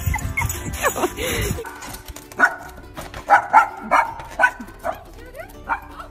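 Small dog barking in short yaps, about seven over three seconds, starting a couple of seconds in after a noisier stretch that cuts off suddenly.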